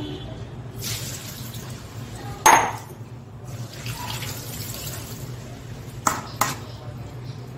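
Kitchen tap water running onto sago pearls in a stainless steel mesh strainer as they are rinsed, with sharp clinks: the loudest about two and a half seconds in, two more close together near the end.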